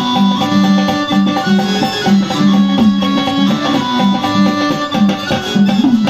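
Instrumental interlude of Marathi folk devotional music: a string instrument plays a repeating melody with short slides, over steady drum strokes.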